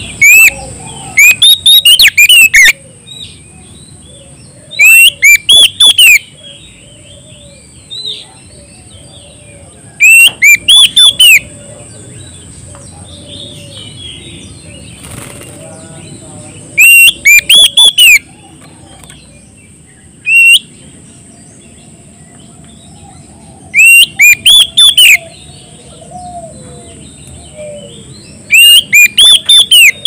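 Oriental magpie-robin (kacer) singing loudly: a burst of rapid, repeated ringing notes lasting about a second, coming every five to seven seconds, with single notes in between. This is the full-voiced song it uses to call out rivals.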